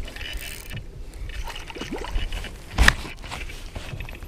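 Water sloshing and gear scraping and knocking against a plastic fishing kayak as a landing net is worked in the water beside it, with one sharp knock a little under three seconds in.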